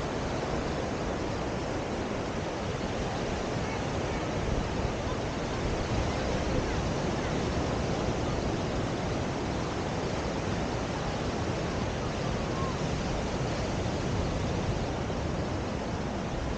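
Steady rushing noise of sea surf and wind on the microphone, with no separate events.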